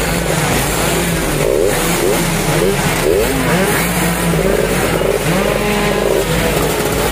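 Several two-stroke underbone racing motorcycles on racing exhausts, revving together in overlapping blips, their engine notes rising and falling.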